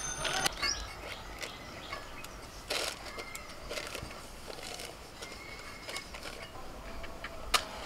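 Butter paper rustling and crinkling as it is pressed into place along the sides of a metal cake tin, with scattered small clicks and one sharp click near the end.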